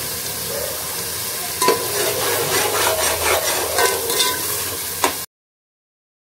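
Onion-and-spice masala frying in oil in an aluminium pot, sizzling steadily while a metal spoon stirs and scrapes against the pot with scattered clinks; the masala is fully fried, with the oil separating. The sound cuts off abruptly about five seconds in.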